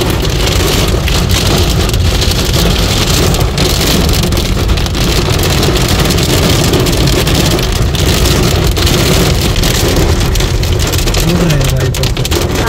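Heavy rain drumming on a car's roof and windshield, heard from inside the moving car, with the steady rush of the car underneath.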